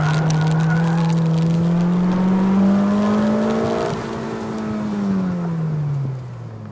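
2007 Honda Civic Si's 2.0-litre four-cylinder engine pulling hard at full throttle, its pitch rising toward the redline. About four seconds in the driver lifts off, and the revs fall away as the car slows. Heard from inside the cabin.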